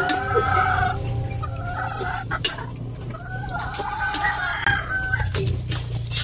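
Roosters crowing: two long crows, one ending about a second in and another in the middle. A metal spatula clinks a few times against the steel wok and bowl.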